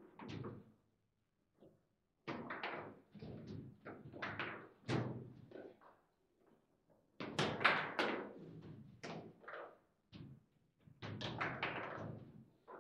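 Table football play: quick runs of sharp knocks and clacks from the ball, the figures and the rods, coming in bursts with short pauses between.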